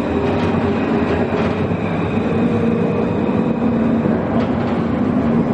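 A Luas tram (Alstom Citadis) running, heard from inside the passenger saloon: a steady rumble of the wheels on the rails, with a low motor whine that rises a little in pitch in the first few seconds.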